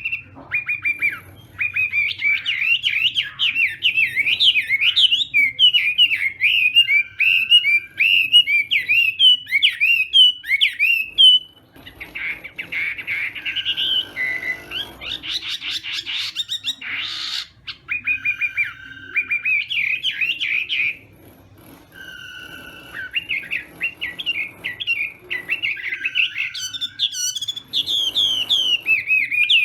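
Chinese hwamei singing: long runs of rapid, varied whistled notes that slide up and down, with short pauses about twelve and twenty-one seconds in.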